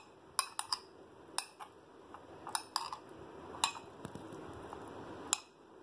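Metal spoon stirring corn kernels in a glass bowl, clinking against the bowl in a scatter of short, sharp, irregular clinks.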